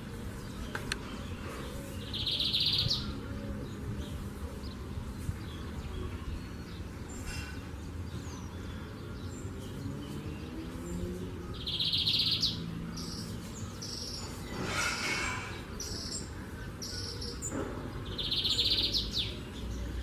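Lined seedeater (bigodinho) singing in the wild: three loud, dense, high trilled phrases about a second long, several seconds apart, with a run of short high notes between the second and third.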